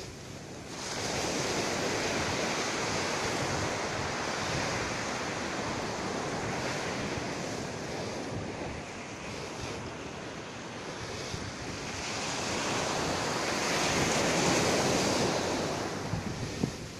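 Surf rushing on a sandy beach, mixed with wind buffeting the microphone. The rush swells about a second in, eases off in the middle and builds again near the end.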